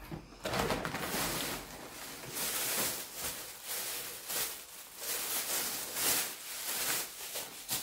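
Thin clear plastic bag crinkling and rustling as it is handled, with many short irregular crackles.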